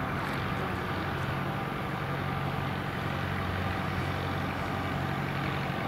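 Reims/Cessna F150 light aircraft's four-cylinder piston engine running steadily at low taxiing power, with the propeller turning slowly.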